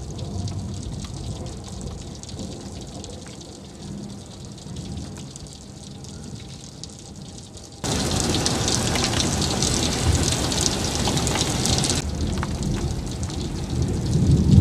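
Thunder rumbling and dying away over faint rain. About eight seconds in it cuts abruptly to the steady hiss of heavy rain, which thins a little after a few seconds, and a low rumble swells near the end.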